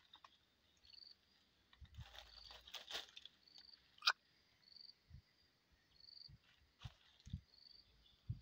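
A calling insect gives faint, short, high chirps at one pitch, repeating about once a second. Rustling and low handling thuds come through, with one sharp click about four seconds in that is the loudest sound.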